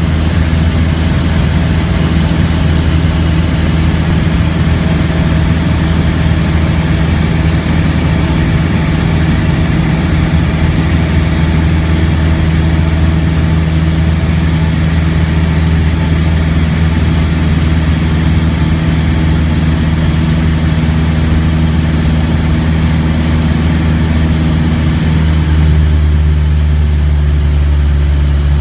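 Light aircraft's engine and propeller running steadily in flight, heard from inside the cockpit as a loud, even drone; the note shifts slightly near the end.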